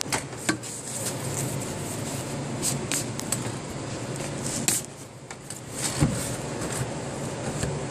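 Pipe being turned by hand inside a homemade PVC swivel joint: a steady rubbing with scattered clicks and knocks of pipe against fitting, easing off briefly about five seconds in.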